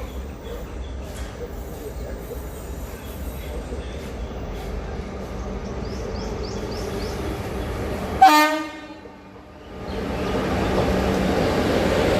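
Indian Railways train noise slowly building, then a short, loud blast of a train horn about eight seconds in. After a brief drop, the steady, louder noise of a moving train follows.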